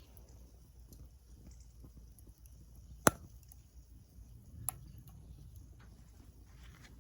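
Small wood fire crackling in a Sierra stove: sparse faint ticks, with one loud sharp pop about three seconds in and a smaller pop about a second and a half later.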